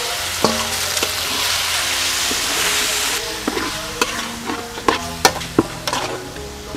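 Marinated beef slices sizzling in a hot metal pan with garlic, loudest in the first three seconds and then easing, as the raw meat hits the hot fat. A metal spatula scrapes and clinks against the pan several times while stirring.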